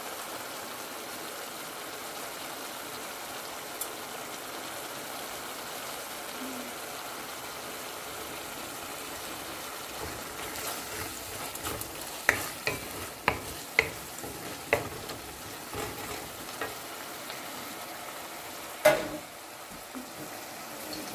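Dried shrimp sizzling as it fries in spiced oil in a stainless steel pan, stirred with a wooden spoon: the shrimp being sautéed in the masala after the water has cooked off. About halfway in comes a run of sharp knocks of the spoon against the pan, with one louder knock near the end.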